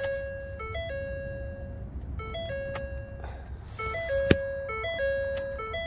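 A simple electronic tune of clean tones stepping up and down, repeating about every two seconds. Three sharp clicks fall in its second half, from the ignition key being turned off and on.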